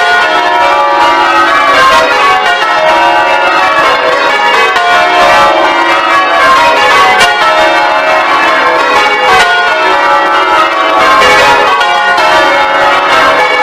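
A ring of ten church bells being change rung: a continuous, loud run of bell strikes following one another in rows, each bell's tone ringing on into the next.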